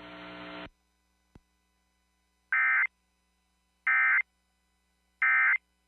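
Emergency Alert System end-of-message data bursts: three short, identical bursts of digital data tones, about a second and a half apart, marking the end of the alert. Before them a faint hum cuts off, followed by a single small click.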